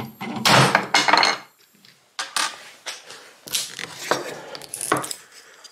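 Wooden mortise-and-tenon test joint being handled and worked apart by hand after its glue has failed. About a second of loud, rough rubbing noise comes first, then a few separate wooden knocks and clacks.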